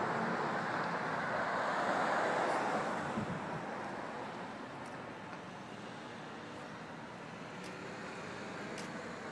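Street traffic noise from cars on the road. It is louder for about the first three seconds, then settles into a steadier, quieter hum.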